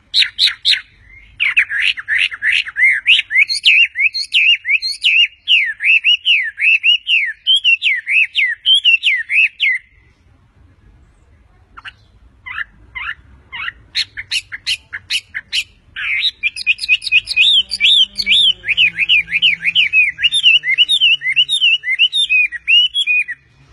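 Chinese hwamei singing a loud, fast song of varied whistled notes. The song breaks off about ten seconds in, a few short separate notes follow, and the full song starts again about six seconds later.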